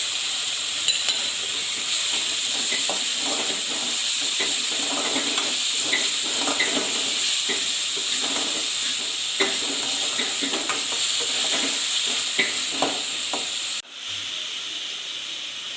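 Chopped tomatoes, onions and ginger-garlic paste sizzling in hot oil in a kadai, with a spatula repeatedly scraping and stirring against the pan. About fourteen seconds in the sizzle drops out abruptly, then carries on more softly.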